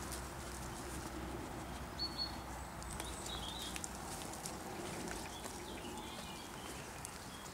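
Woodland ambience: a few short bird chirps over a steady outdoor hiss, with light rustling and small clicks from the undergrowth.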